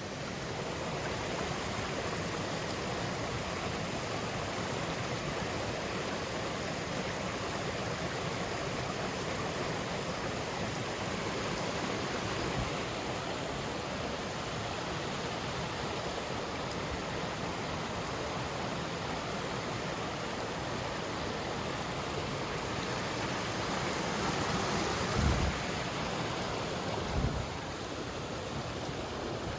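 Mountain stream water rushing steadily, with two low thuds near the end.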